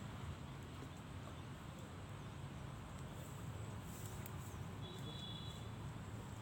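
Outdoor background noise: a steady low rumble, with a few faint clicks and one short high chirp about five seconds in.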